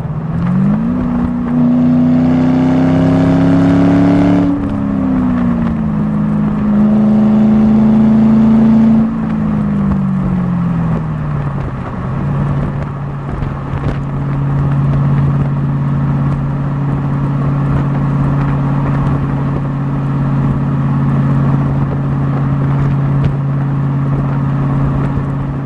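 Ford Mustang V8 engine: it picks up about half a second in and holds a raised note, drops, picks up again for a couple of seconds, then falls back to a steady, even idle that lasts the rest of the time.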